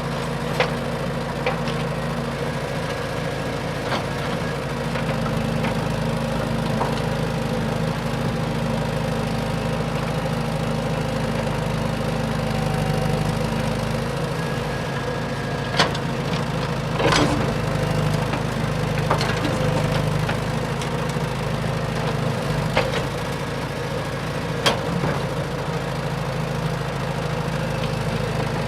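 A machine's engine running steadily at a constant pitch, like idling, with a few sharp clicks or knocks scattered through it.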